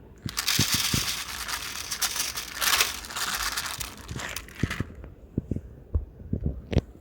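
Packaging being crinkled and rustled by hand for about four and a half seconds, then a few light knocks.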